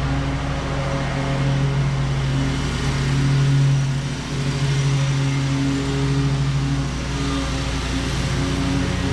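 Toro Z-Master 4000 zero-turn mower's engine running steadily while mowing, swelling a little about three and a half seconds in and dipping briefly just after.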